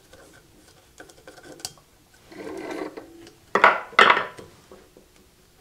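Hand-tool work at an electric motor's terminal box: a screwdriver loosening a wire's terminal screw, with a few light clicks and a short scraping rub, then two sharp clacks close together about three and a half seconds in as the tool and wire are handled.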